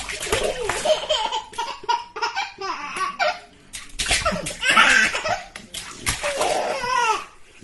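A baby laughing in repeated bursts while splashing water in a bathtub, with sharp slaps of water between the laughs and a louder splash about halfway through.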